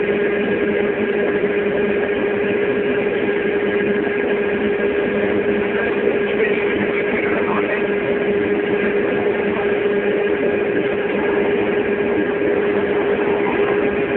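Steady drone of a running motor, a constant hum over even noise that does not change.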